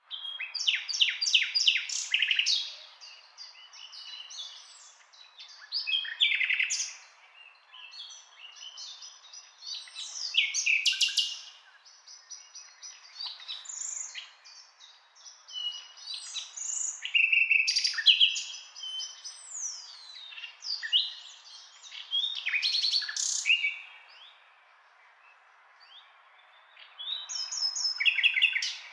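Nightingale singing: separate phrases of rapid repeated notes, rattles and pure whistles, with short pauses between them and a longer pause a few seconds before the end.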